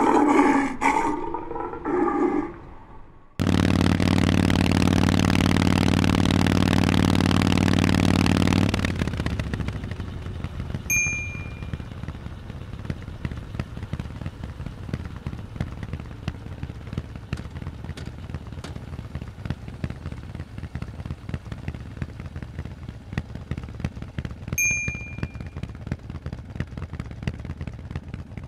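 Harley-Davidson Forty-Eight V-twin on Vance & Hines exhausts, idling with an uneven low rumble and a rapid flutter. Before it, from about three seconds in, a loud steady drone runs for about five seconds and then sinks into the idle. Two short high beeps sound, about fourteen seconds apart.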